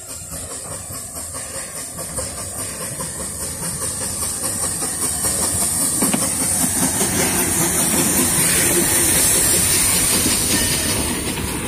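Narrow-gauge steam locomotive approaching and passing close by, with loud steam hiss over rhythmic exhaust beats that grow louder to a peak about nine seconds in. The carriages then roll past.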